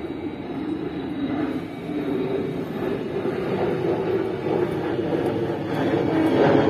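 Engine of a CC201 (GE U18C) diesel-electric locomotive running as it moves during shunting, a steady rumble that grows louder as it draws nearer.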